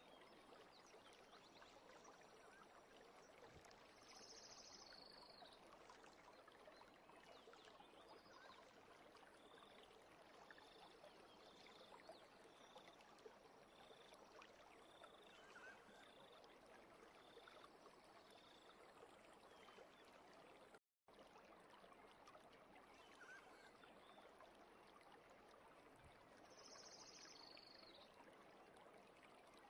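Near silence: a faint steady hiss, with a row of faint short high blips about once a second midway through.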